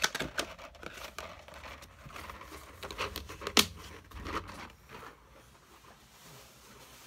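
A clear plastic case of markers being handled and moved across a table: scattered plastic clicks and rubbing, with one sharp click about three and a half seconds in.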